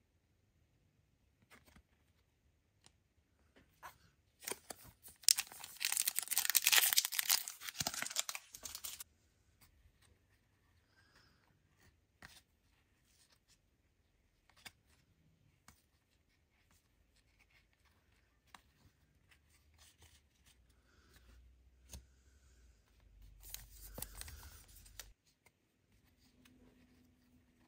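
Trading card pack wrappers being torn open: a long tearing, crinkling rip about five seconds in and a shorter one near the end, with faint clicks of cards being flicked through by hand in between.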